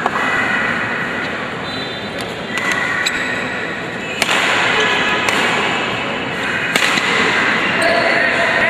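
Badminton racquets striking the shuttlecock in a rally: sharp single cracks, the loudest about four and seven seconds in. Under them runs a steady din of crowd noise in the hall.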